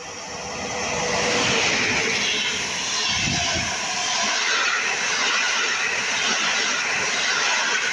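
Passenger train hauled by an electric locomotive passing through a station at speed. The noise builds over the first second and a half as it arrives, then holds as a steady loud rush of wheels on rails as the coaches go by, with a low rumble about three seconds in.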